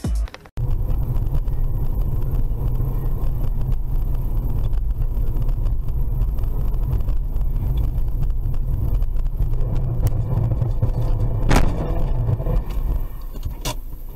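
Steady low rumble of a car driving on a snowy road, picked up inside the cabin by a dashcam microphone. A sharp knock comes about three quarters of the way through, and another near the end.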